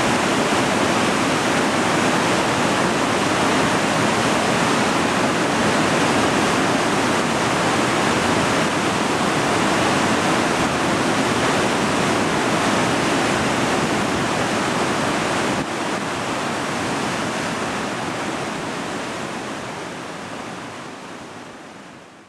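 Dettifoss waterfall: a steady, dense rush of falling water, dropping slightly about two-thirds through and then fading out near the end.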